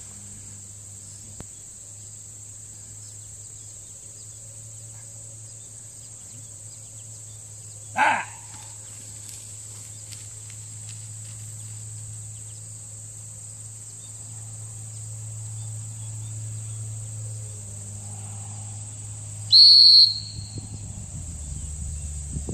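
A single short blast on a dog-training whistle near the end, one steady high note: the stop command given to a retriever working out in the field. A brief sharp sound comes about eight seconds in, and a steady high insect drone runs underneath.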